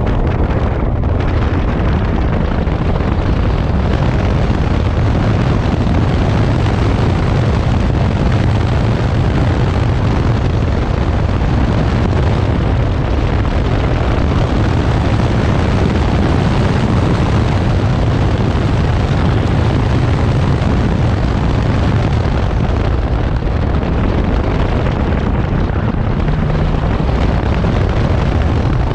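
Honda S2000 CR's 2.2-litre four-cylinder engine running under hard driving through a cone course, buried in loud, steady wind buffeting on the microphone.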